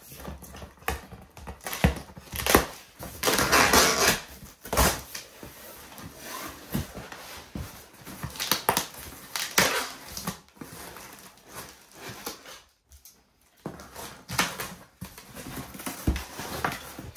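Cardboard shipping box being cut and torn open by hand: scissors working through packing tape, cardboard ripping and flaps rustling, with scattered knocks and handling clicks.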